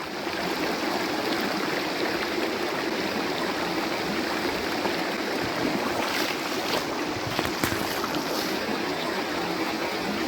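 Flash-flood water running hard across a desert road, a steady rushing noise, with a few brief clicks about six to eight seconds in.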